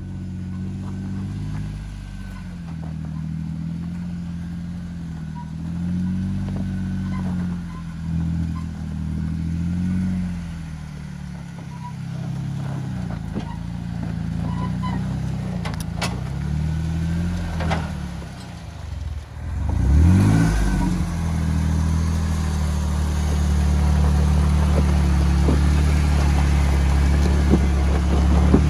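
Jeep Wrangler engine working at low revs while crawling over ruts, the revs rising and falling with the throttle. Just before two-thirds through it drops away briefly, then revs up quickly and runs louder and steadier as the Jeep comes close. A few sharp clicks sound near the middle.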